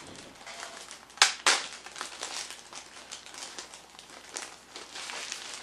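Plastic baggie crinkling as it is handled and opened, with two sharp loud crackles about a second in, then steady rustling.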